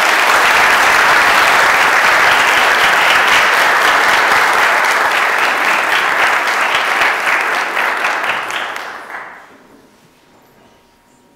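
Audience applauding, a dense steady clapping that thins and dies away about nine seconds in.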